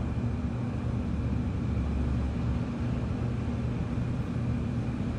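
Steady low mechanical hum with a faint, steady high whine above it.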